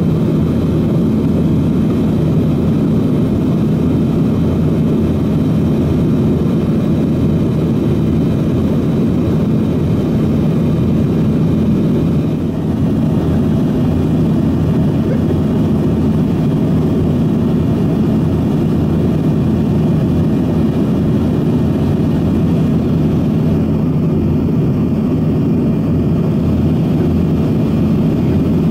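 Steady cabin drone of a Yakovlev Yak-42D in cruise, heard from a window seat beside a rear-mounted Lotarev D-36 turbofan. It is a constant low hum with a few held tones over a rush of air.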